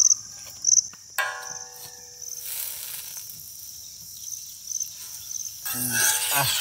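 Crickets chirping in a steady pulsing trill, with a ringing metal clink about a second in and a short burst of sizzling near the end as butter is spread on the hot griddle.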